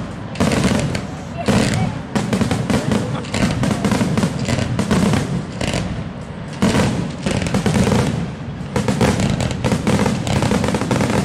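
Aerial fireworks bursting overhead, with dense rapid crackling pops from glittering crackle-effect shells going on throughout, mixed with heavier bangs.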